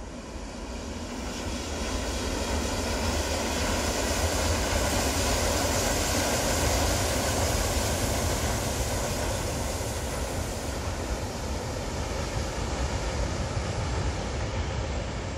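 A freight train hauled by two KORAIL electric locomotives running past with a steady rumble and wheel noise. It grows louder over the first few seconds, is loudest around the middle, and eases off slightly near the end as it moves away.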